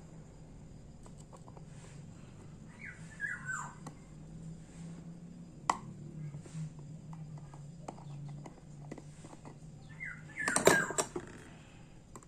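Light clicks and taps of small tools handling a Seiko 6309 automatic watch movement, with two brief squeaky chirps that fall in pitch, one about three seconds in and a louder one about ten seconds in.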